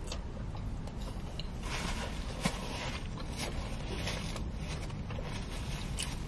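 Close chewing of fast food with the rustle and scrape of a small cardboard food box being handled, over a low steady hum.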